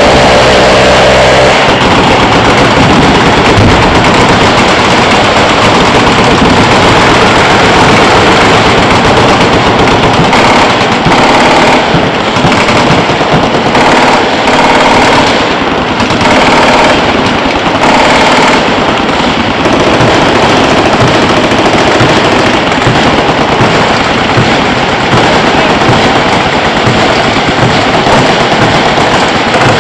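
Many machine guns firing at once on a firing line: sustained, overlapping automatic fire, very loud, with a few brief lulls in the middle.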